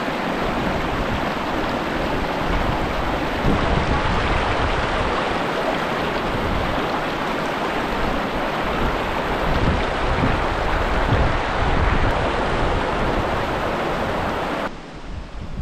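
Shallow, fast river rushing over stones in a steady rush, with low rumbles underneath; it falls to a quieter rush suddenly near the end.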